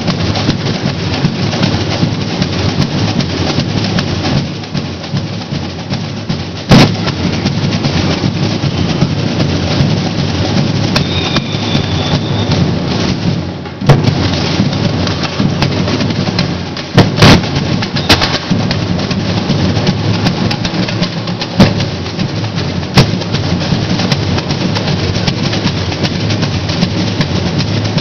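Samba percussion band (bateria) of surdo bass drums and smaller hand drums playing a loud, continuous samba rhythm, with a few sharp, louder strikes standing out.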